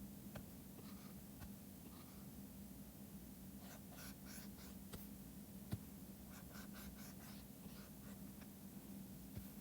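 Faint scratching of a stylus pen drawing on a tablet, short strokes in quick clusters with a few light taps, over a steady low hum.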